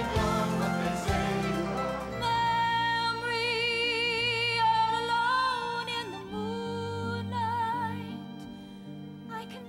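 Show music: an upbeat ensemble number breaks off about two seconds in, and a woman sings a slow, sustained solo with wide vibrato over soft accompaniment.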